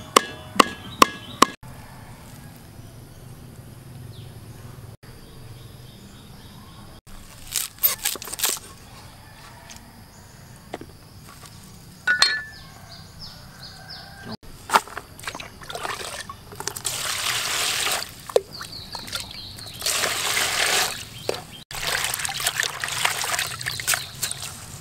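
A few knocks of a cleaver on a wooden chopping board, then leafy greens swished and splashed by hand in a plastic basin of water, in several bursts of sloshing.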